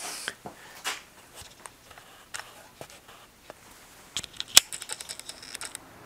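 Light clicks and taps of small hand-handling noises, scattered at first and then a quick run of clicks about four seconds in.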